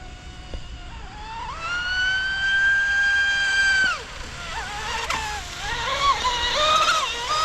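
Electric RC boat motor running on a 6S battery, its whine rising in pitch about a second and a half in and holding high for about two seconds before cutting off. It then wavers up and down with the throttle and holds high again near the end.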